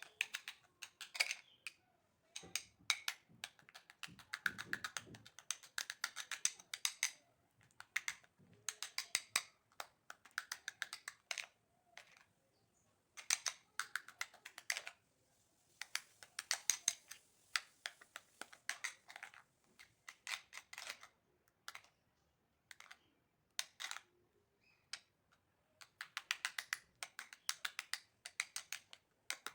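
A utensil stirring a thick creamy paste in a bowl, tapping against the bowl's side in runs of quick clicks broken by short pauses.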